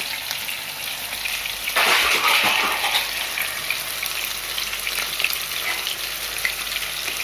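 Two minced-meat cutlets frying in hot vegetable oil in a pan, a steady crackling sizzle as their second side browns. The sizzle swells briefly about two seconds in.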